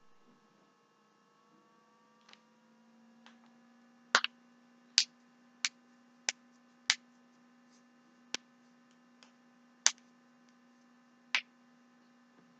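Joints being cracked: a series of sharp pops, the first a quick double pop, then about eight more spaced roughly half a second to a second and a half apart, over a faint steady hum.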